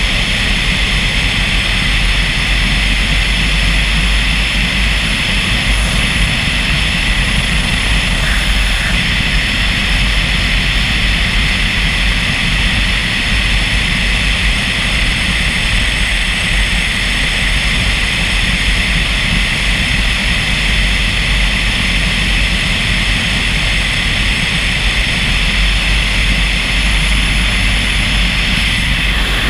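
Steady drone of a car driving along the road: a low tyre and engine rumble with a hiss above it, unchanging in level.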